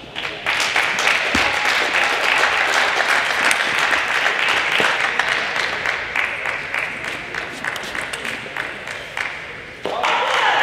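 Audience applause: dense, steady clapping that thins out over the second half, breaks off abruptly near the end and starts up again.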